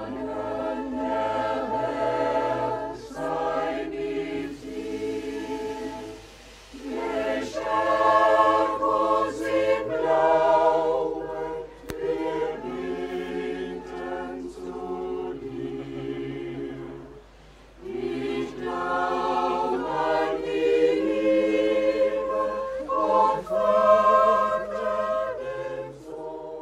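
Mixed choir of men's and women's voices singing in long held phrases, breaking twice between phrases and fading out at the very end.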